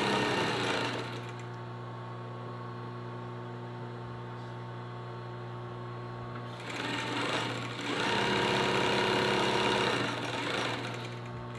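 Over-50-year-old industrial sewing machine: its motor hums steadily throughout, and it stitches in louder runs, briefly at the start and again for a few seconds from a little past the middle until near the end.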